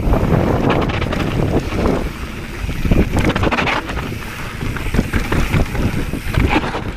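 Wind buffeting the microphone of a camera on a mountain bike riding fast down a dirt trail, over the crunch of the tyres and irregular clicks and rattles of the bike over rough ground.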